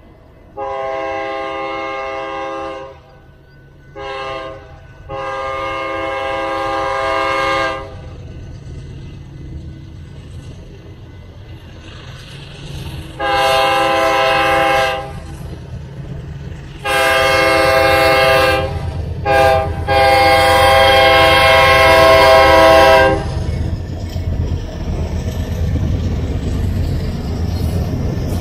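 BNSF freight locomotive's multi-tone air horn sounding blasts for a grade crossing, the last group the standard long, long, short, long crossing signal. After the horn stops, the low rumble of the lead diesel locomotives grows as they pass close by near the end.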